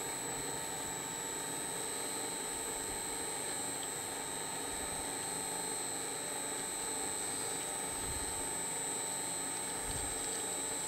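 Electric paper shredder running steadily in reverse, its cutters turning to work loose sticky Stretch Armstrong goo softened with hot soapy water; the motor gives a steady high-pitched whine.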